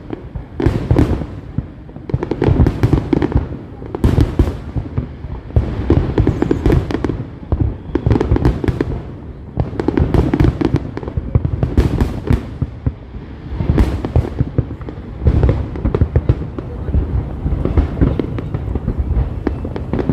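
Fireworks display going off in a continuous barrage: deep booms and sharp cracks, many per second, with no break.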